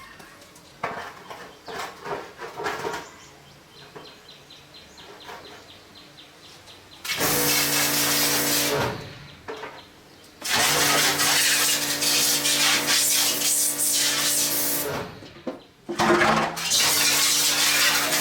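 A machine runs in three loud stretches with a steady hum and a hiss, stopping and starting again, after several seconds of light clicks and knocks.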